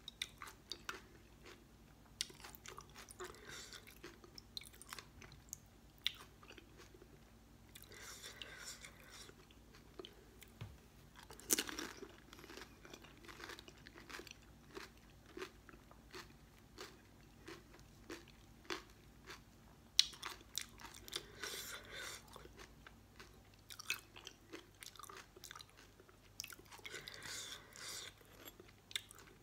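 Close-miked eating of pani puri: crisp, hollow fried puris filled with spiced water crunch as they are bitten, followed by wet chewing. Several bites come one after another, with a few sharper cracks among them.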